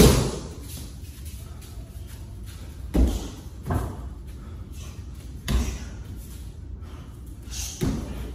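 Kicks landing on a handheld kick shield: about five sharp thuds spread over several seconds, the first the loudest.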